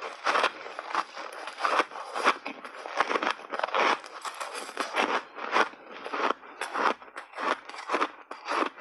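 Frozen block ice coated in milk powder being bitten and chewed right at a lapel microphone, a close, crisp run of crunches about two or three a second.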